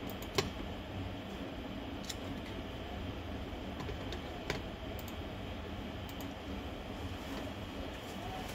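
A few light, sharp clicks over a steady low background rumble; the loudest click comes about half a second in, with fainter ones near 2 and 4.5 seconds.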